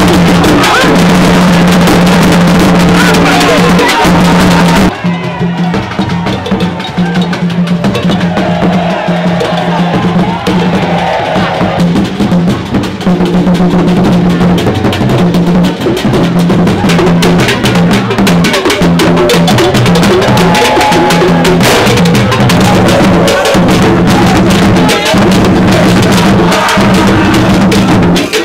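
Drum-led music with dense percussion over a steady, sustained low note, voices mixed in; the sound changes abruptly about five seconds in, losing its top end.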